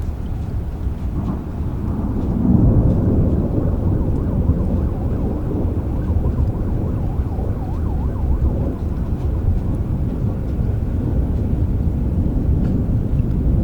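Rain with a deep, rolling rumble of thunder that swells about two and a half seconds in and keeps rumbling.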